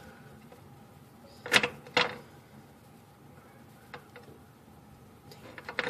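Zippo lighter being worked: two sharp metallic clicks about half a second apart, from the hinged lid clinking open and the flint wheel being struck, then another cluster of clicks near the end.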